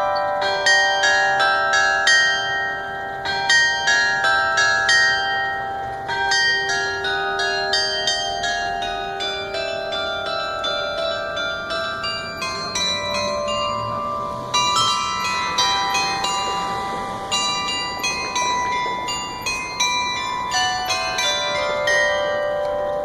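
The bells of an outdoor glockenspiel are struck in a melody, each note ringing on and overlapping the next. The playing fades off near the end.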